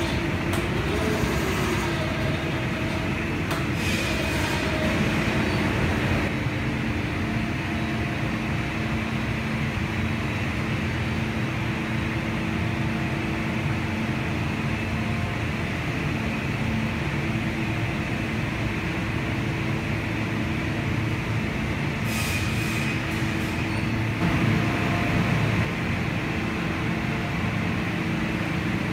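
Band sawmill line running: a steady machinery hum with a few held tones, broken by short high hisses near the start and about three-quarters of the way through, and a brief louder surge just after.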